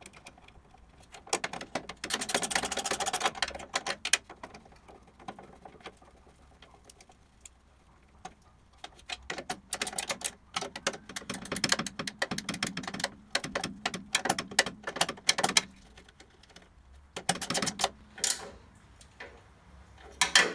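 17mm ratchet spanner clicking in rapid runs as bolts are wound into a steel bracket on a chassis crossmember. There is one run early on, a longer stretch of clicking in the middle, and a short run near the end, with pauses between.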